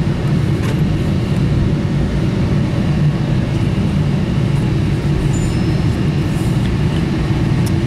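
A train in motion: a steady, loud low rumble of wheels and running gear on the rails.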